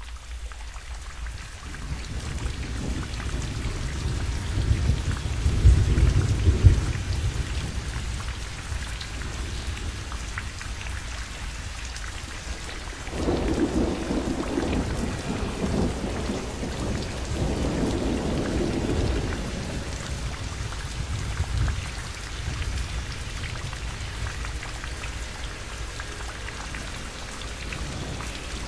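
Steady rain with rolling thunder. One long rumble builds to its loudest about six seconds in, another rolls in around thirteen seconds and carries on for several seconds, and a shorter one follows.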